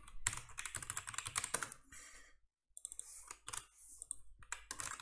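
Typing on a computer keyboard: a rapid run of keystrokes for about two seconds, a short pause, then more scattered keystrokes.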